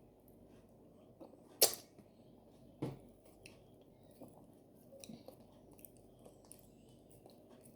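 Close-up eating sounds of someone chewing fufu with okra soup: soft wet mouth noises and small smacks, with a sharp click about a second and a half in and a softer one just under a second later.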